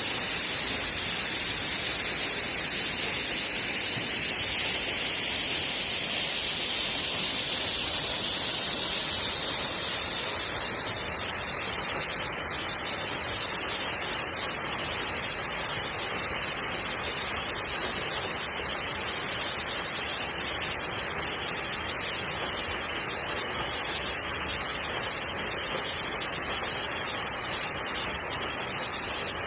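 Waterfall rushing: a steady, hissing roar of falling water that stays even throughout.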